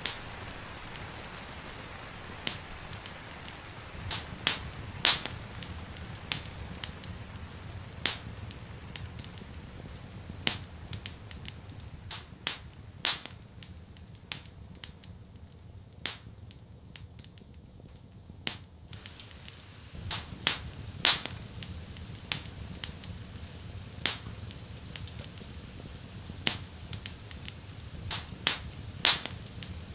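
Wood fire crackling in a fireplace: irregular sharp pops and snaps, a few of them louder, over a low steady rumble.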